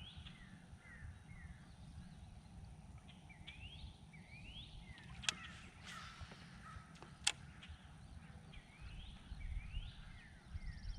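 Songbirds calling: many short rising whistled notes, repeated again and again, over a faint low rumble. Two sharp clicks about five and seven seconds in.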